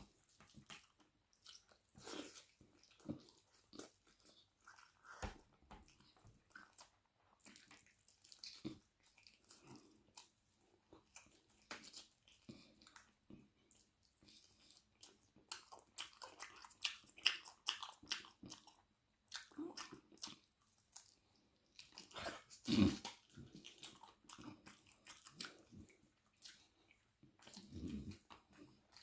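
Close-miked eating sounds of a person eating a spicy chicken wing curry meal: wet chewing, lip smacking and occasional crunches in irregular bursts, the loudest about 23 seconds in.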